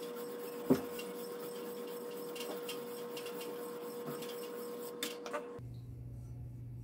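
Sweeping strokes of a Chosera 600 waterstone in a guided sharpener's arm across the edge of a fish cleaver: a soft, steady abrasive scraping, with a sharp click about a second in and two lighter clicks near the end.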